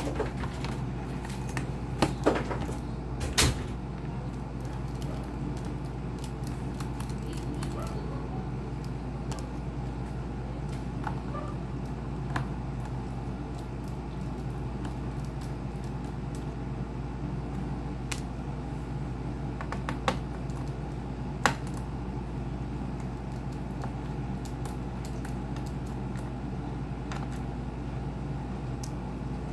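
Scattered sharp clicks and knocks from objects being handled, a few close together near the start and a couple more later, over a steady low hum.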